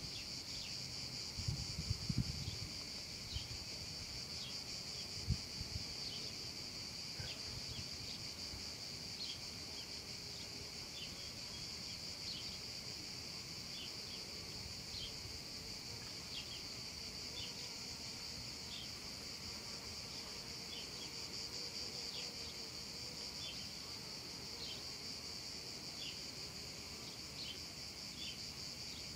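Cicadas singing in a steady, unbroken high drone, with short higher chirps scattered through it about once a second. A few low thuds come in the first few seconds.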